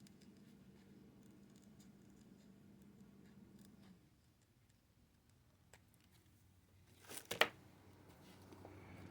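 Scissors trimming a thin cutout, with faint snips and then two or three sharp, close-together snips about seven seconds in.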